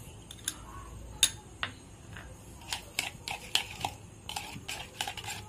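A hand mixing ghee and sour yogurt in a ceramic bowl: a few scattered clicks against the bowl at first, one of them loud about a second in, then a quick run of wet mixing strokes from about halfway on.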